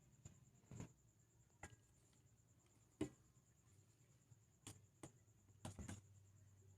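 Faint scattered clicks and taps over near silence, about seven in all, with the sharpest about three seconds in and a quick cluster near the end.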